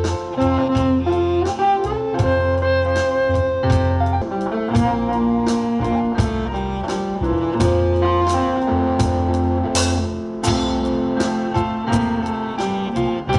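Live instrumental combo band playing: a drum kit keeps a steady beat under bass, keyboard, electric guitar and saxophone.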